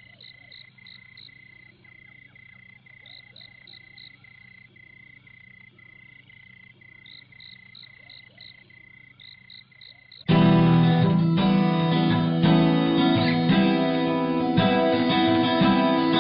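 Faint night-time animal chorus with a steady pulsing chirp about twice a second. About ten seconds in, acoustic guitar music starts suddenly and loudly, strummed.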